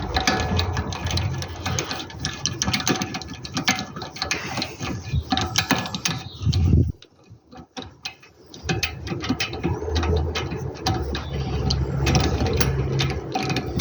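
Hand ratchet wrench clicking rapidly as bolts are run in or out, over a low steady hum, with a short pause a little past the middle.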